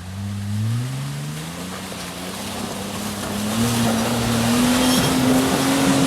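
Off-road vehicle's engine revving under load on a steep mud climb, its pitch rising steadily and then holding high as it grows louder, over a rough noise of tyres and mud.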